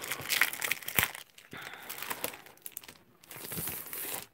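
Clear cellophane wrapping and sheets of 12-by-12 patterned paper crinkling and rustling in irregular bursts as the paper pack is opened and the sheets are slid out, with a light knock about a second in.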